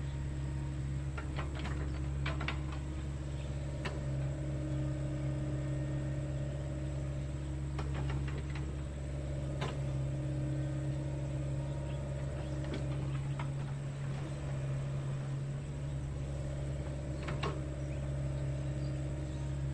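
Mini excavator engine running steadily, a constant low hum, with occasional sharp knocks and clicks from the machine working.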